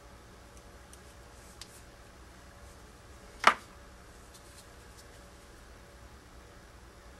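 One sharp snap about three and a half seconds in, among a few faint ticks of handling over quiet room tone.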